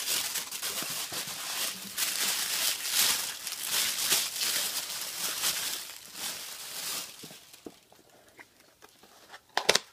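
Tissue paper rustling and crinkling as it is handled and pulled back inside a cardboard shoe box, loud at first and dying away after about seven seconds. A sharp click near the end.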